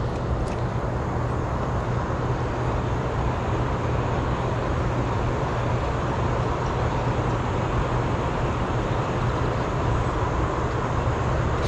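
A steady low hum under an even rushing noise, unchanging in level.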